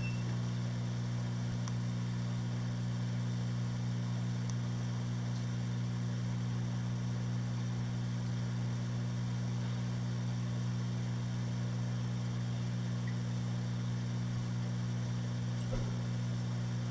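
Steady low electrical hum with a faint hiss from a Red Sea Max 130 reef aquarium's running pumps, unchanging throughout.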